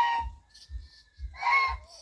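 Goose honking: one harsh honk right at the start and another about a second and a half in.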